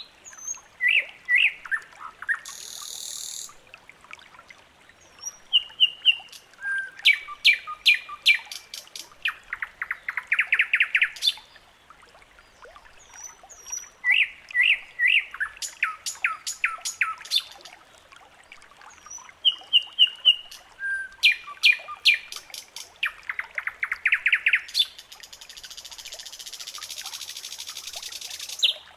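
A songbird singing the same phrase over and over, about every seven seconds: a few high chirps followed by a fast trill. A steady hiss comes in near the end.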